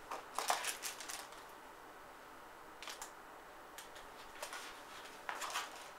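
Clear plastic packaging crinkling and clicking as a motherboard accessory pouch is handled, in short crackly spells about a second in, near the middle and near the end.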